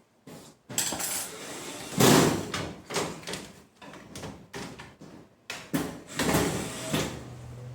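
Clattering and knocking of metal tools and small parts being handled and set down, in irregular bursts, loudest about two seconds in and again near the end.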